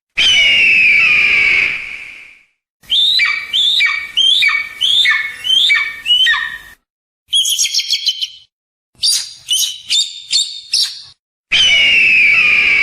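Hawk calls in separate sequences: a long, harsh, falling scream, then a run of about seven short falling calls, a fast high chatter, a set of about six sharp short calls, and the long scream again near the end. Each sequence stops abruptly into silence.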